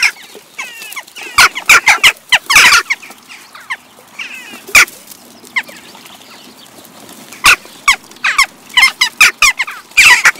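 A flock of jackdaws calling: short, sharp 'tchack' calls that come in bursts, often several birds at once, with quieter spells between. The calls grow dense again near the end.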